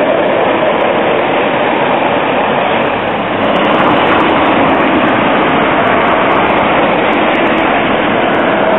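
A Tatra T3SU tram running past close by on street rails, a loud steady rush of wheel and running noise. About three seconds in the level dips briefly, then steady street traffic noise carries on.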